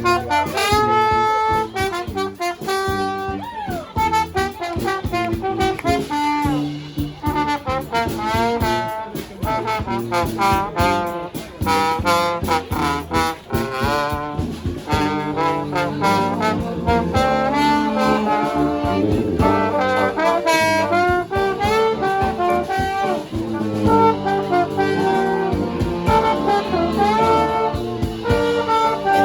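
Brass band playing live: trumpets and trombones carry fast melodic lines with bends and runs over a drumbeat.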